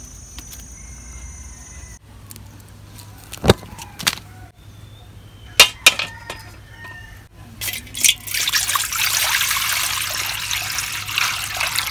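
A few sharp knocks as a metal wok is handled on a gas burner, then from about eight seconds in a steady stream of water poured into the wok, splashing on the metal.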